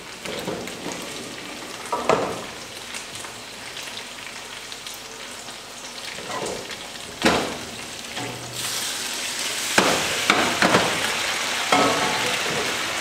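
A few metal clanks from the pasta pot as the rigatoni is lifted out. About two-thirds of the way through, the wet, undrained pasta goes into the hot pan of pancetta and a loud, steady sizzle starts, with a few more knocks over it.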